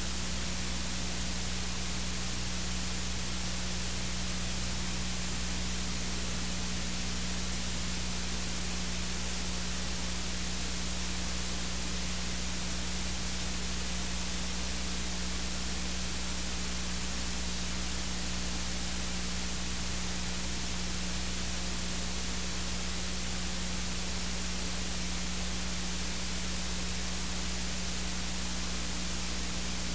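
Steady hiss and static with a low electrical hum from a blank audio track, carrying no sound of the performance.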